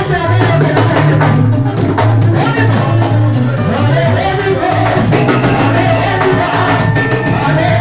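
Live gospel praise band playing: a woman sings lead into a microphone over bass guitar, drum kit and keyboard. A strong bass line comes in just after the start, under a steady drum beat.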